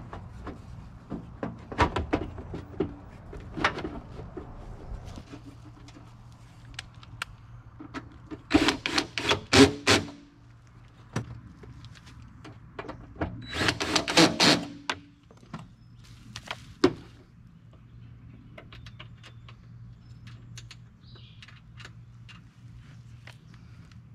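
Clicks and knocks of a UTV's plastic bed side panel and its fasteners being fitted back in place, with two clusters of loud rapid knocking about nine and fourteen seconds in.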